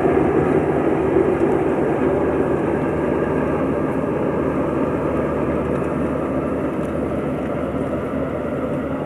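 Kubota DC-35 combine harvester running steadily while harvesting rice, its diesel engine and threshing machinery making a dense mechanical drone that fades gradually as the machine moves away.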